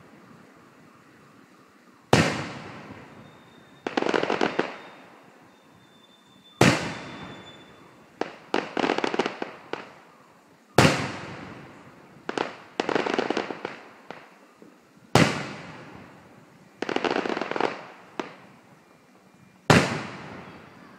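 Fireworks shells bursting overhead: five sharp booms, one about every four and a half seconds, each followed a second or two later by about a second of crackling.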